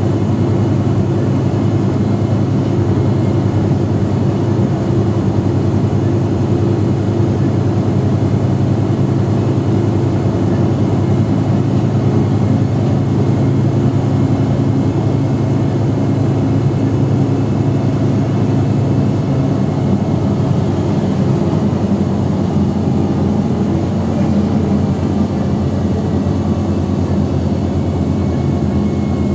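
Mercedes-Benz OM457hLA 12-litre inline-six turbodiesel of an O345 Conecto G articulated bus running with a steady drone. Its tone shifts slightly about twenty seconds in.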